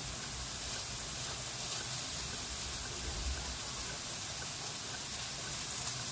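Steady sizzling hiss of food frying in a pan.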